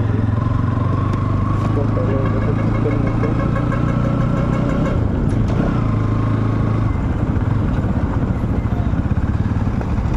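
A motor vehicle engine running steadily with a low hum that dips briefly about five seconds in.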